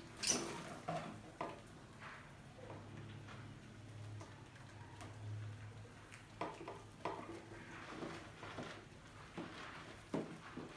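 Mice scrabbling over and inside a clear plastic jar trap: a scratchy patter of claws with scattered sharp clicks and knocks on the plastic, the loudest about a quarter second in.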